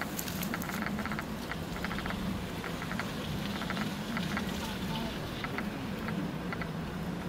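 Outdoor background: a steady low hum, with short clusters of quick, high clicking chirps recurring irregularly about every half second.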